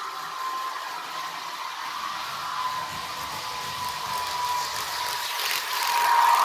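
Digital sound of an ÖBB CityJet electric multiple unit from an ESU LokSound decoder, played through a model train's small speaker: the electric traction drive's steady whine, sinking slightly in pitch as the throttle is eased back to 50%, and growing louder near the end.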